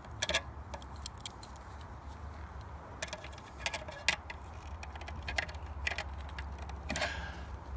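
Pliers squeezing and working coils of wire, making scattered metallic clicks and clinks with a short scrape near the end, over a steady low rumble.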